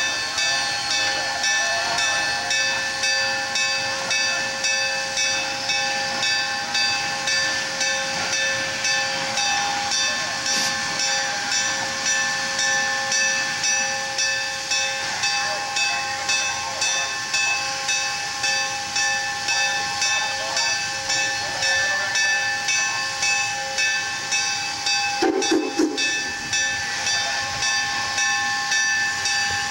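AT&SF 3751, a 4-8-4 steam locomotive, standing and hissing steam with an even pulsing about twice a second and a steady whine over it. A brief lower-pitched sound comes in near the end.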